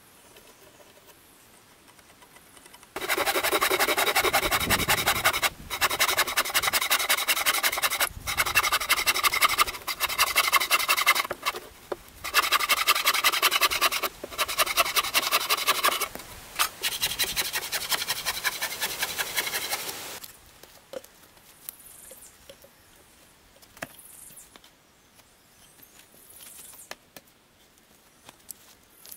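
A hand tool cutting into a debarked wooden pole makes a loud rasping. It comes in several runs of two to three seconds with short breaks, from about three seconds in until about twenty seconds, followed by a few faint knocks.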